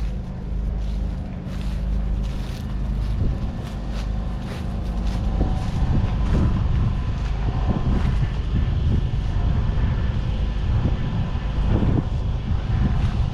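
Claas Arion 440's 4.5-litre four-cylinder diesel engine running steadily, with wind buffeting the microphone.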